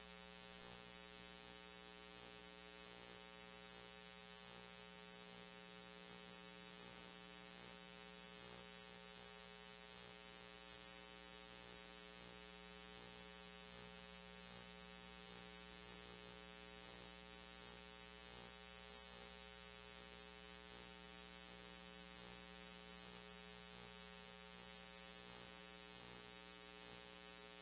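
Near silence: a faint, steady electrical hum with no broadcast audio.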